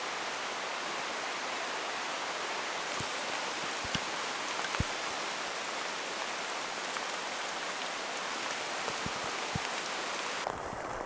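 Steady tropical rain hissing down through forest, with a few sharp drops tapping close by. The hiss thins out abruptly near the end.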